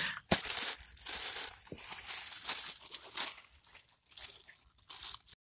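Irregular rustling and crackling noise in uneven bursts that cuts off suddenly near the end.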